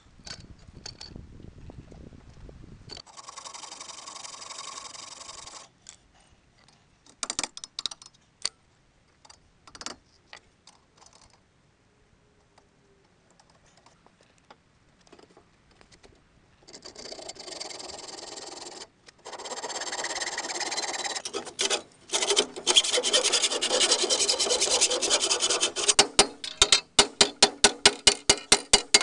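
Metal being scraped and rubbed by hand with a flat tool against a rusty steel frame tube, in long spells of steady scraping, then quick back-and-forth strokes, several a second, near the end.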